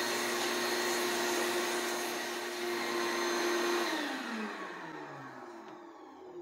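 Wet/dry shop vacuum running with a steady motor whine while drawing through its hose. About four seconds in it is switched off, and the whine falls in pitch as the motor spins down.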